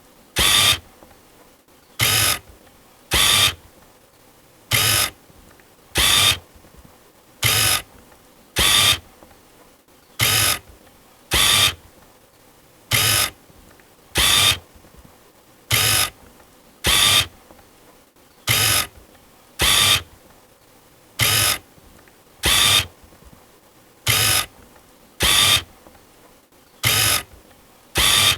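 Canon EOS 600D DSLR camera focusing: the lens's autofocus motor drives in short mechanical bursts, each about a third of a second, in pairs about a second apart, with a pair roughly every three seconds.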